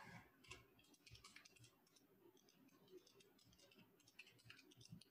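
Very faint, irregular clicks of computer keyboard keys being typed.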